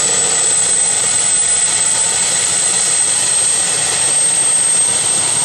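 Turbine helicopter running on the ground: a loud, steady high-pitched turbine whine over a constant rush of engine and rotor noise.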